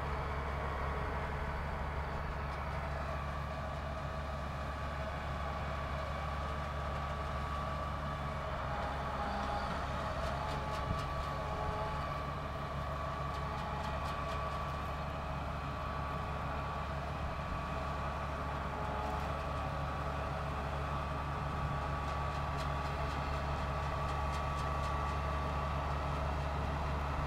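Sugarcane harvester's engine running steadily as the machine drives over the field: a constant low drone with a thin steady whine above it.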